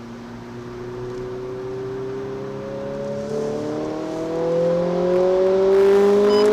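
Renault Clio RS 200's naturally aspirated 2.0-litre four-cylinder engine accelerating hard through one gear, its pitch rising steadily and growing louder toward the end.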